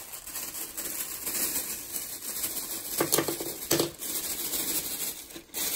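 Plastic shopping bags rustling and crinkling as a hand rummages through them, with two sharper crackles a little after three seconds in.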